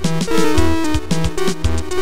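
Electronic music: a melody of short stepping notes over held bass notes and a steady drum beat.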